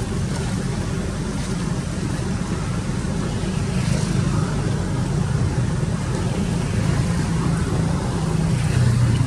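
A steady low rumble of noise, a little louder near the end.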